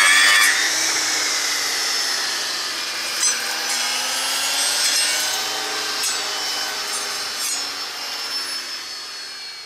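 Brush-cutter blade on an EGO 56V cordless trimmer power head spinning and cutting through a small birch log, the electric motor's whine rising and falling in pitch as the blade bites. The sound is loudest at the start and fades away near the end.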